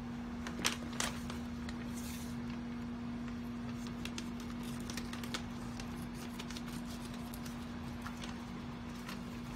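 Kitchen scissors snipping into plastic pouches, with plastic crinkling and scattered sharp clicks from the blades and packaging over a steady hum.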